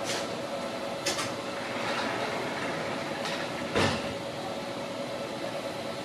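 Railway station concourse ambience: a steady hum with a few short knocks or clatters, the loudest a little under four seconds in.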